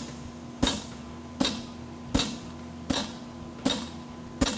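Steady hammer blows on a hand-forged mild-steel fuller seated in the groove of a red-hot draft horseshoe on an anvil, driving the fullering crease into the shoe. There are six sharp metallic strikes about three-quarters of a second apart, each with a short ring.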